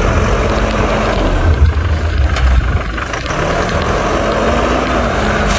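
A motor vehicle's engine running under loud, steady noise, its pitch rising slowly a couple of times.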